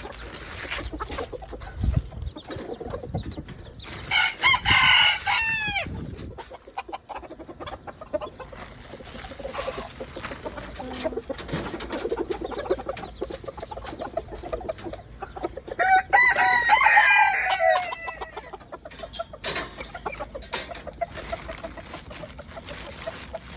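Chickens clucking, with a rooster crowing twice: once about four seconds in and again about sixteen seconds in, each crow lasting about two seconds.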